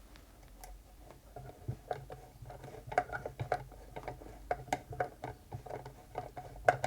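Irregular light metallic clicks and taps of a screwdriver working the linkage mounting screws on a Singer Featherweight 221K sewing machine, growing busier and louder about halfway through.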